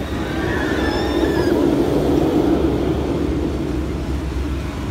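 Steel roller coaster train rumbling along its track overhead, swelling to its loudest about two to three seconds in. Riders scream in the first second and a half.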